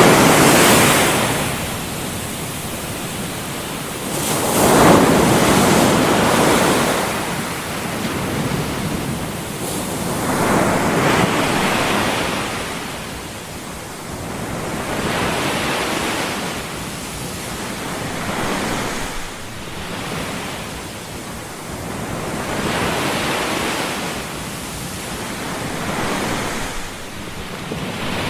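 White-noise sleep track: a steady rushing hiss that swells and ebbs every four to six seconds, like waves washing in.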